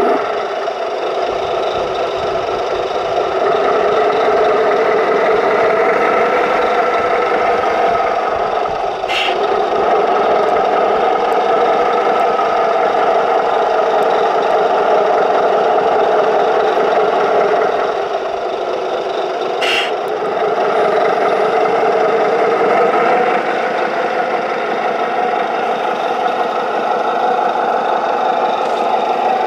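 Radio-controlled model truck running: a steady mechanical drone of its motor and gear drive, with two brief sharp clicks, one about nine seconds in and one about twenty seconds in.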